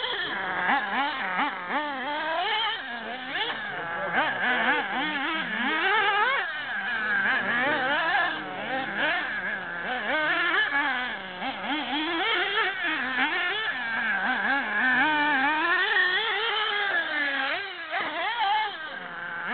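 Small nitro engine of a radio-controlled off-road buggy, revving up and down with the throttle, its high buzzing pitch rising and falling continually.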